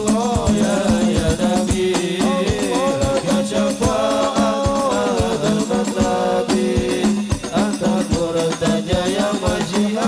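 Indonesian sholawat music: a group of voices singing a devotional melody over frame drums beaten in a quick, busy rhythm.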